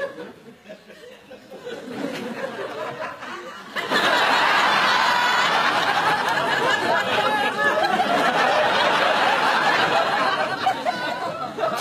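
Studio audience laughter: a few quieter seconds, then the laughter starts suddenly about four seconds in and carries on loud and sustained, easing off a little near the end.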